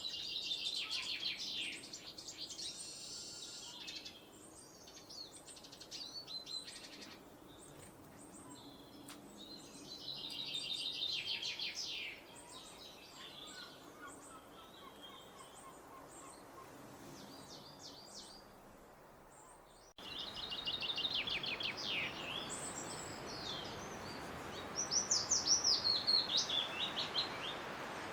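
Wild birds singing: short rapid trilled phrases repeated every several seconds, with other chirps between them. About two-thirds of the way through, the recording changes abruptly to one with a steady background hiss and a bird singing quick rising and falling notes.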